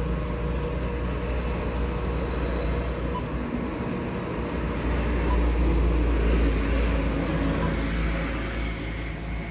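Steady low rumble of a Honda City ZX idling, heard inside the car's cabin, swelling slightly about halfway through.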